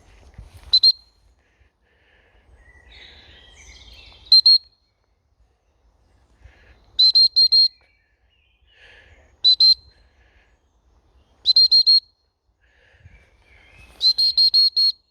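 A dog whistle blown in short, loud blasts at one steady high pitch, in six groups of two to six quick blasts, calling the dogs in. Faint bird chirps in the gaps.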